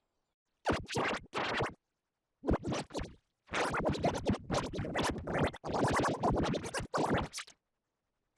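Edited, effect-processed audio in choppy bursts that start and stop abruptly, heard like turntable scratching, with a long dense stretch in the second half.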